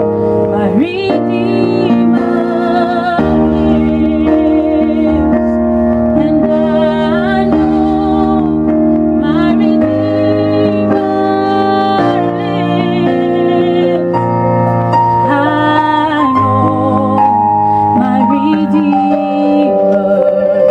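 Woman singing a worship song into a microphone over keyboard accompaniment, her voice holding long notes with a wavering vibrato.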